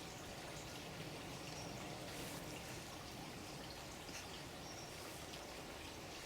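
Steady running water, with a few faint short high bird chirps over it.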